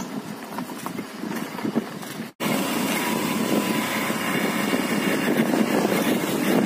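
Vehicle engine running steadily. The sound drops out for an instant about two seconds in, then comes back louder.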